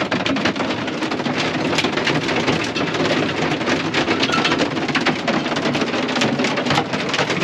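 Hail mixed with rain pelting a combine's cab, heard from inside: a dense, unbroken clatter of small hard hits.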